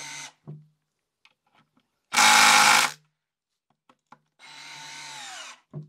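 Makita 10.8V cordless driver drill driving a long thin screw into wood, its motor whirring in short spurts and winding down with a falling pitch near the end. About two seconds in comes a much louder, harsh burst lasting under a second.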